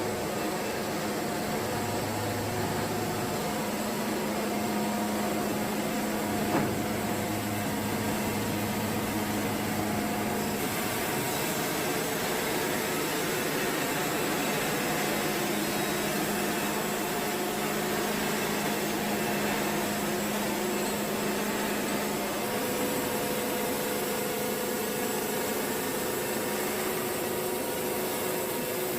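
Wood-Mizer portable band sawmill running, its engine holding a steady hum while the band blade saws through a log. The sound brightens with more hiss about ten seconds in, and a new tone joins about twenty-two seconds in.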